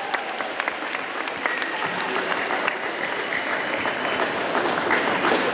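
A crowd of schoolchildren applauding, the clapping growing louder toward the end.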